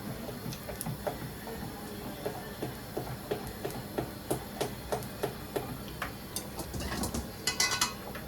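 Steady rhythmic clicking, about three clicks a second, with a louder burst of sharp clatter near the end.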